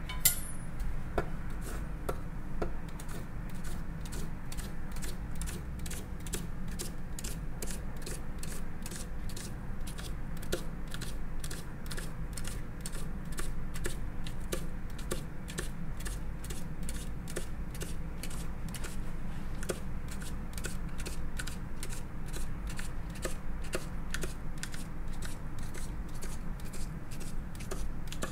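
Tip of a long kitchen knife making rapid, evenly spaced cuts through a folded thin white strip on a wooden cutting board. Each cut is a light click against the board, a little over two a second, with one louder knock near the start.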